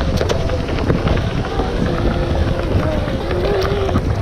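A Onewheel XR being ridden on a Hoosier Slick tyre: a steady low rumble of wind and rolling, with a faint wavering whine.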